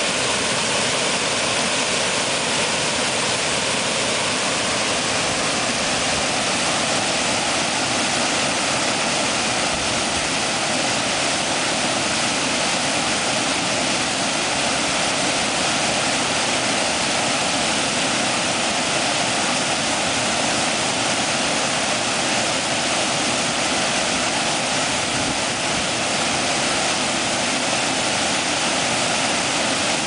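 Creek water pouring over a small dam's spillway into a foaming plunge pool: a steady, unbroken rush of falling water.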